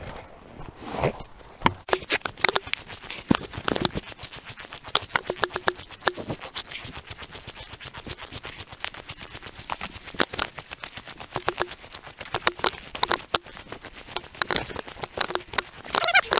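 Footsteps crunching through frost-covered bog vegetation, a quick, steady run of short crisp crunches.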